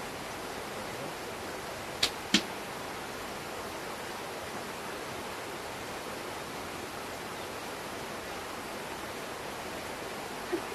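Steady even hiss with two sharp knocks close together about two seconds in.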